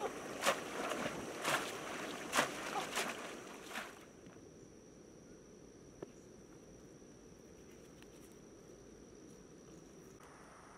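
Shallow stream water splashing and sloshing as a bamboo fish trap is worked down into it, with about five sharp splashes over the first four seconds. The splashing then stops, leaving quiet outdoor ambience with a steady high insect drone.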